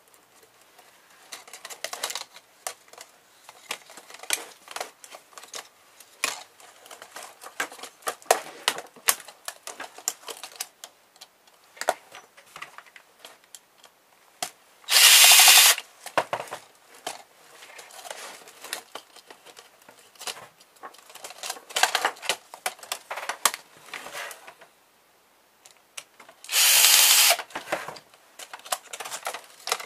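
Plastic clicks, snaps and scrapes as an HP laptop's case and keyboard parts are pried and worked apart by hand. Twice, about halfway through and near the end, a cordless drill/driver runs in a loud burst of about a second, taking out screws.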